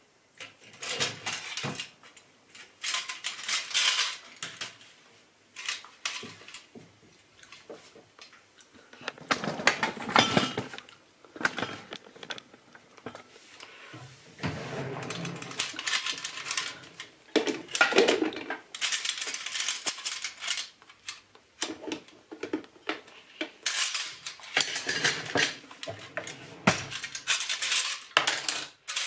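Metal cutlery and dishes clattering and clinking as they are handled, knives, forks and spoons rattling into a cutlery drawer tray and a steel utensil holder in irregular bursts.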